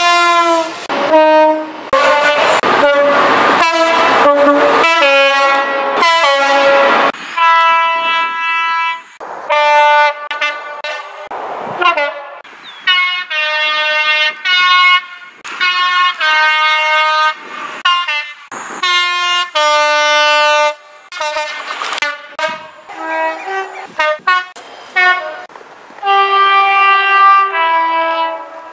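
A run of British diesel freight locomotive air horns, one locomotive after another, each sounding two tones in turn, high and low, in short and longer blasts.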